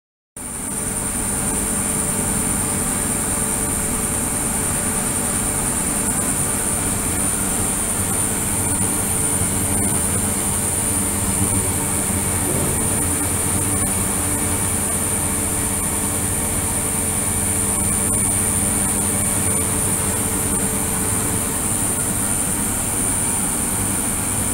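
Ultrasonic cleaning tank running: a steady hiss and hum with a constant high-pitched whine, starting about half a second in.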